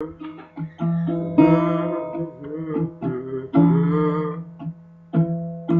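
Acoustic guitar played alone, picking notes and strumming a few ringing chords, as the intro to a song.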